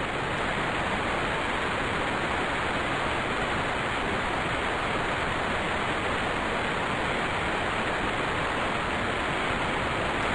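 Steady, unchanging rushing hiss of static-like white noise.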